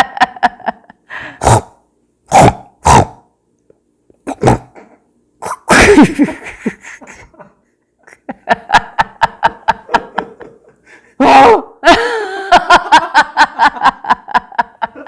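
A person vocally imitating animal calls: a few short, sharp bursts, a longer cry falling in pitch about six seconds in, then rapid repeated pulsing calls.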